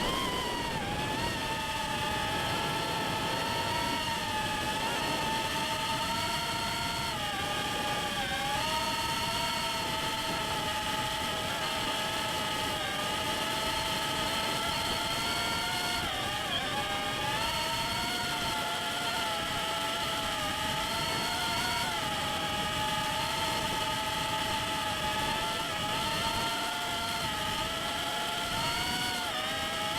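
Motors and propellers of a Darwin FPV CineApe 35 cinewhoop drone whining in flight, the pitch wavering and dipping now and then with throttle changes.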